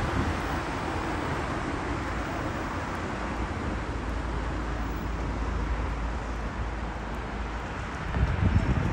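City street traffic: a steady wash of car tyres and engines on a busy boulevard, with a louder vehicle passing near the end.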